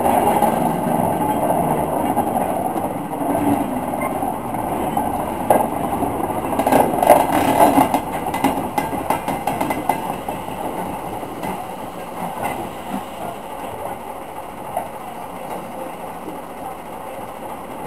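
Short goods train rolling slowly past: wagon wheels clicking over the rail joints, with metal clanks from the couplings and buffers, loudest about six to eight seconds in. It then fades as the small steam tank engine at the rear passes.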